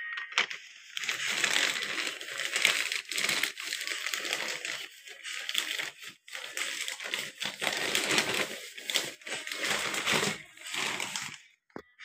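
Plastic courier mailer bag crinkling and tearing as it is ripped open by hand, in repeated rustling bursts with brief pauses, stopping shortly before the end.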